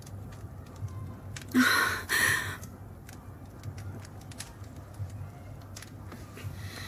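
Two short, breathy exhalations from a person, about one and a half seconds in, over a low steady hum with faint scattered clicks.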